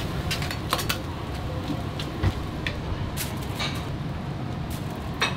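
Metal ladle and tongs clanking and scraping against a large wok as noodles are stir-fried, about a dozen irregular knocks over a steady low rumble.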